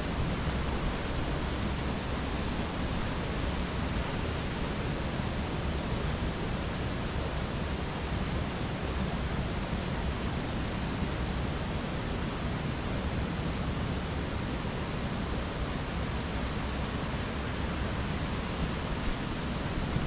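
Mountain stream water flowing, a steady unbroken rush.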